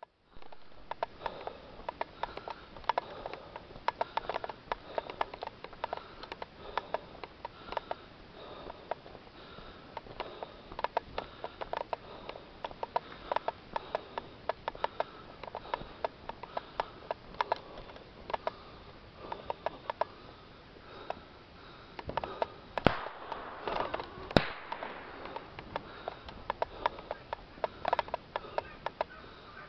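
Irregular crunching and clicking of movement along a gravel track close to the microphone, with two sharp knocks a second and a half apart about two-thirds of the way in.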